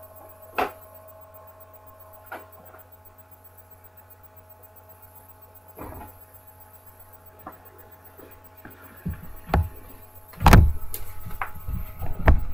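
A low steady hum with a few faint knocks, then from about nine seconds in a run of close thumps and rustles of someone handling things right by the microphone, the loudest a heavy thump about ten and a half seconds in and another near the end.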